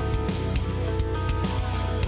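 Background music: a rock track with guitar and a steady drum beat.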